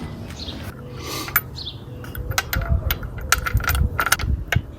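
Light metallic clinks and taps, a quick irregular run of them through the second half, as a road wheel is lifted back onto the hub and its wheel bolts are handled and fitted.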